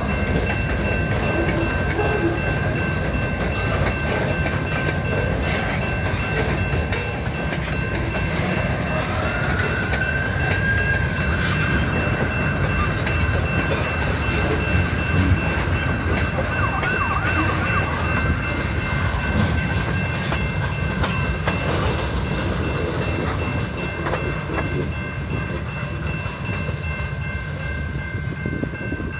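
Freight cars of a CN train rolling past on the rails, with a steady low rumble of wheels on track and a thin, steady high-pitched whine over it. The sound eases slightly near the end as the cars move away.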